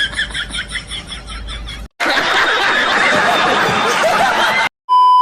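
Snickering laughter in quick repeated pulses, cut off sharply about two seconds in. A loud, dense wash of noise follows, then another cut and a short, steady beep near the end.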